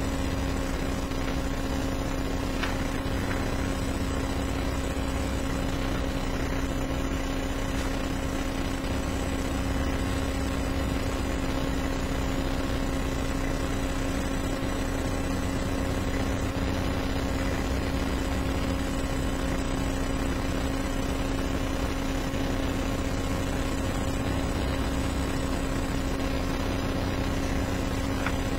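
Steady room tone from the courtroom's microphone system: an even hum with one constant low tone over a hiss, unchanging throughout.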